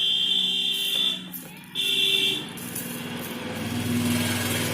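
Two high-pitched electronic buzzer beeps, the first about a second long and the second shorter, followed by the low hum of a motor vehicle engine that grows louder.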